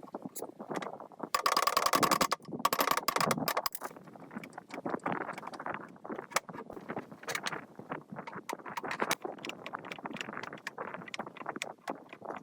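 Metal parts clinking and scraping as they are handled, with two short, loud buzzing stretches near the start.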